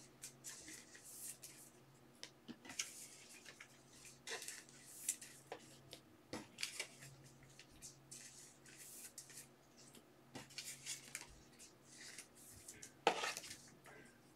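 Faint rustling and scraping of trading cards being handled and laid down on a tabletop, in short scattered strokes with a louder one near the end, over a low steady hum.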